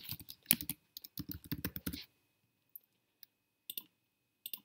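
Typing on a computer keyboard, a quick run of keystrokes for about two seconds, followed by a few separate mouse-button clicks spread over the next two seconds.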